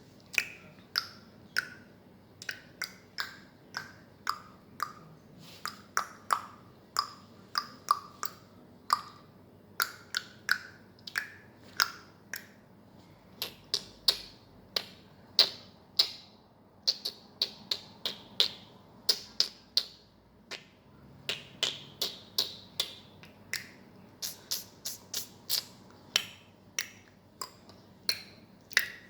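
A long run of sharp clicks, about two to three a second, each with a short ringing pitch that shifts up and down from click to click.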